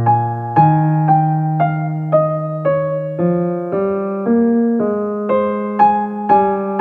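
Background piano music: a slow, even melody, one note about every half second over held bass notes.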